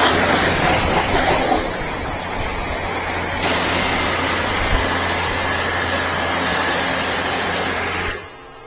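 Electric high-pressure washer running, its water jet hissing steadily against a car and concrete, with the low hum of the pump motor under it; the freshly repaired high-pressure pump is holding pressure. The spray sound cuts off sharply near the end.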